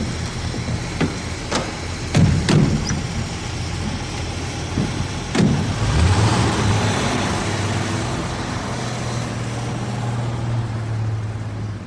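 Car doors clicking and slamming shut, with two loud slams a few seconds apart, then the car's engine picking up about halfway through and running steadily as it pulls away.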